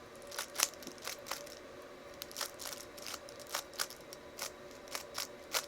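A 3x3 Rubik's Cube being turned by hand: its plastic layers click and snap as they turn, about fourteen quick clicks at uneven spacing.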